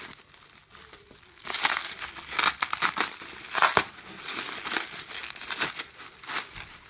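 Bubble wrap and plastic film being crinkled and pulled apart by hand, with many sharp crackles. It is quiet at first and the crinkling starts about a second and a half in.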